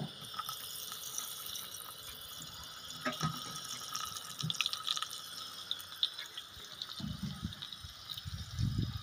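Stuffed okra frying in hot oil with cumin seeds in a kadai: a steady sizzle with many small crackles and pops, and a low rumble briefly near the end.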